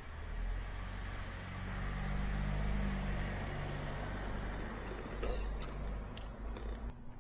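A steady low machine hum that stops about seven seconds in, with a few sharp clinks of small metal pump parts and seals being handled near the end.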